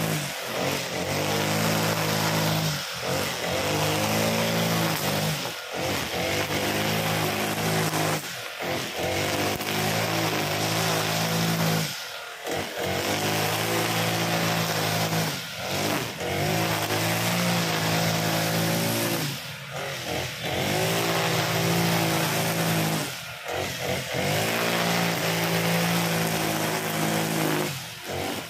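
Honda GX35 four-stroke brush cutter running at high revs while its spinning nylon line cuts grass. Every three to four seconds the revs dip briefly and climb back up as the throttle is eased and reapplied.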